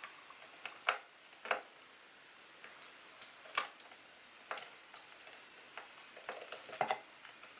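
Small, sharp clicks and taps at irregular intervals, about a dozen in all, from a screwdriver working the hard-drive bracket screws out of a mid-2010 MacBook.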